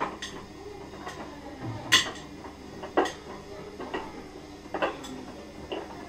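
Bowls and utensils clinking and knocking as they are handled, in a series of separate sharp clinks roughly once a second. The sharpest come about two and three seconds in.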